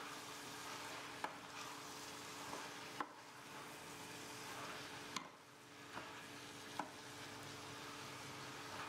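Wooden spoon stirring spaghetti squash, chickpeas and spinach in a stainless steel sauté pan over a low sizzle, with about five light knocks of the spoon against the pan.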